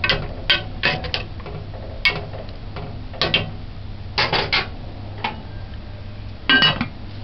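A spoon clinking against the side of an aluminium cooking pot while stew peas are stirred, then more scattered knocks of utensils. About six and a half seconds in, the aluminium lid is set down on the pot with the loudest clatter.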